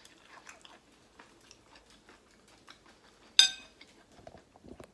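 Quiet chewing with faint mouth clicks, then a metal fork clinks once against a ceramic plate a little over three seconds in, ringing briefly.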